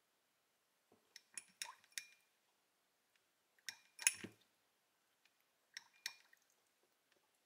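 Faint light clinks of a paintbrush tapping against a ceramic watercolour palette while paint is moved between wells and thinned with water. They come in three short clusters about two seconds apart, the middle one the loudest.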